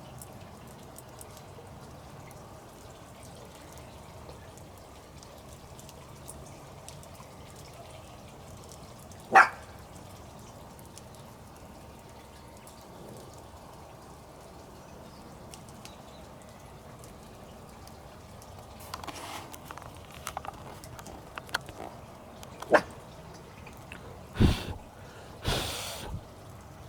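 Campfire burning with a faint steady hiss and occasional sharp wood pops: one loud pop about nine seconds in, then a scatter of crackles and snaps near the end.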